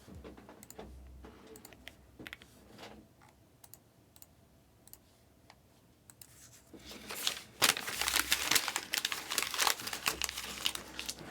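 Scattered light keyboard clicks, then about seven seconds in, loud crinkling and rustling of plastic packaging being handled.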